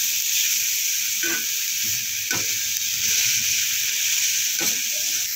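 Shredded cabbage, carrot and capsicum sizzling in hot oil in a kadai while a perforated metal spatula stirs and tosses them, scraping against the pan three times.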